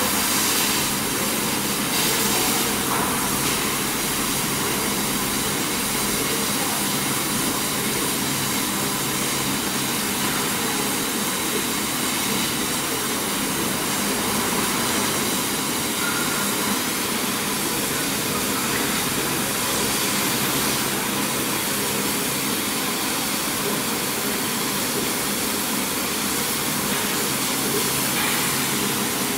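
150 W CO2 laser cutting machine running as it cuts 5 mm plywood: a steady mechanical hiss and hum that holds level throughout.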